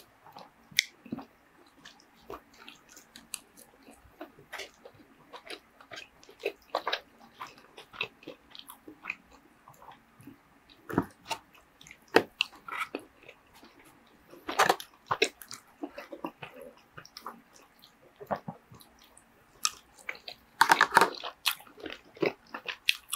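Close-miked chewing and mouth sounds of a person eating shredded kalua pork and rice: irregular wet smacks and small clicks. Near the end comes a louder burst of clatter.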